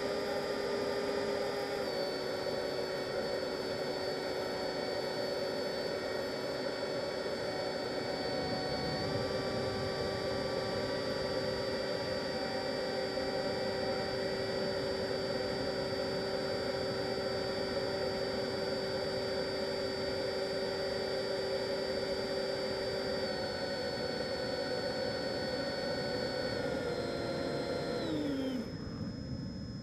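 Electric ducted-fan motors of a Freewing F-22 RC jet, heard from its onboard camera, whining steadily under rushing air, the pitch stepping slightly a few times with throttle changes. Near the end the whine glides down and quiets as the throttle is pulled back for the landing approach.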